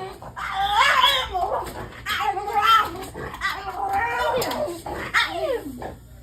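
A pet dog making drawn-out, whining vocal sounds that rise and fall in pitch, in several stretches one after another.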